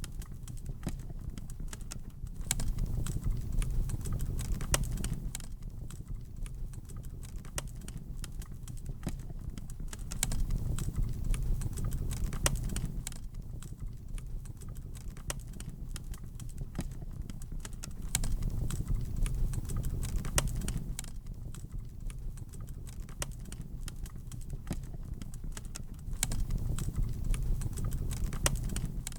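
Wood fire crackling in a fireplace, with irregular sharp cracks over a low rumble of flames that swells for a few seconds about every eight seconds.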